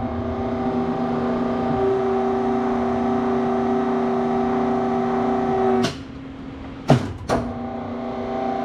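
Powered hydraulic press pump humming steadily under load while pressing a bearing onto an axle shaft. The hum cuts off with a knock just before six seconds in, two clicks follow, and then it starts again more quietly.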